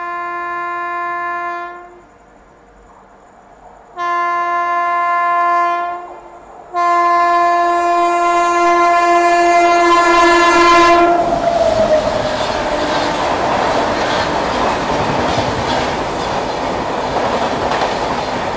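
A locomotive horn sounds three times, two short blasts and then a longer one. Its pitch drops as it ends. Then a train passes at speed with a loud rush of wheel clatter.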